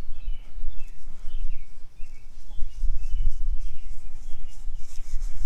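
Gloved hand patting and rubbing freshly seeded soil on a bare lawn patch, a soft rustling that grows busier near the end, over a fluctuating low rumble. Birds chirp repeatedly throughout.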